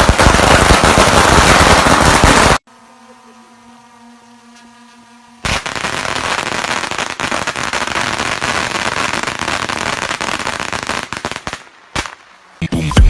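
Strings of firecrackers going off in a rapid, dense crackle that cuts off abruptly a few seconds in. After a quiet gap the crackling starts again, then thins out into a few last single pops near the end.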